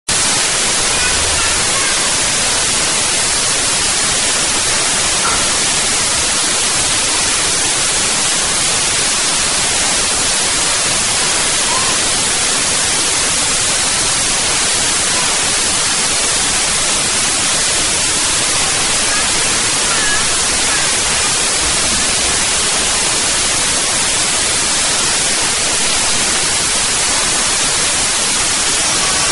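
Loud, steady static hiss, even across all pitches and unchanging throughout, with nothing else standing out from it.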